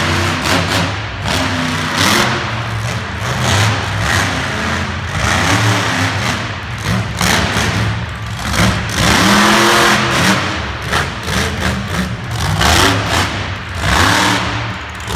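Monster truck engine revving hard in repeated bursts during a freestyle run, its pitch rising and falling again and again, loudest about nine seconds in.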